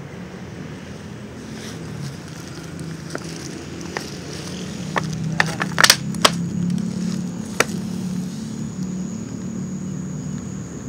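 A steady low mechanical hum throughout, with a faint high whine above it. About five seconds in comes a short cluster of sharp clicks and crackles, the loudest near the six-second mark.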